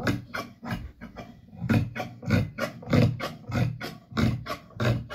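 Scissors snipping through fabric on a table, a regular run of short cuts about three a second.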